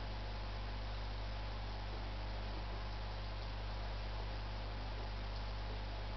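Steady low electrical hum with a constant hiss over it, unchanging throughout.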